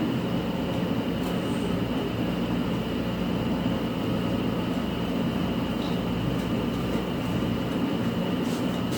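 Multi-axis CNC machine running steadily: an even mechanical hum and hiss with a faint, steady high whine.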